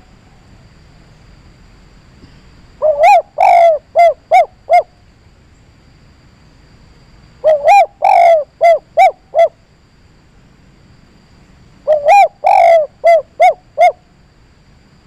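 Zebra dove (perkutut) cooing three times: each phrase opens with a couple of longer rolling notes and ends in three short, clipped 'kuk' notes, the 'kuk 3' ending prized for provoking rival birds.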